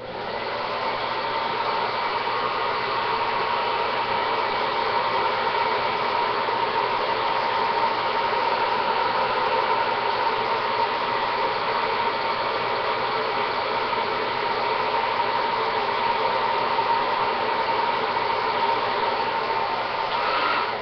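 Handheld hair dryer running on a low, cool setting: a steady rush of air with a constant motor whine, spinning up in the first second and winding down right at the end.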